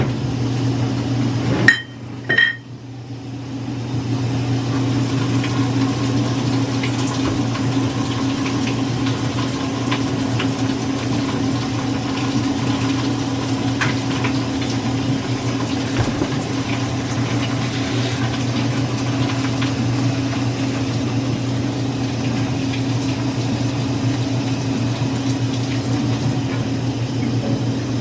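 Top-loading washing machine running with a steady low hum. About two seconds in the hum drops out briefly, with two short ringing clinks, then builds back up and holds steady.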